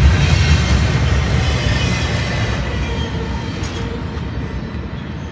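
Double-stack intermodal freight train rolling past, its wheels rumbling on the rails. The sound fades steadily as the last cars go by and move off.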